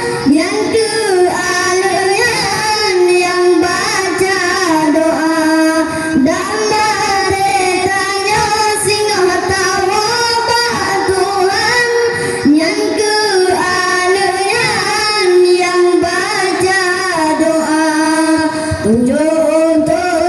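Boys singing an Acehnese sholawat, a devotional song praising the Prophet, into handheld microphones, their voices amplified through a PA. The melody runs on without a break.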